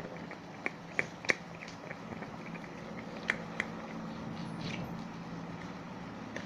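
Soap-and-salt slime being stirred in a container: scattered wet, sticky clicks and taps, the sharpest about a second in and again a little after three seconds, over a steady low hum.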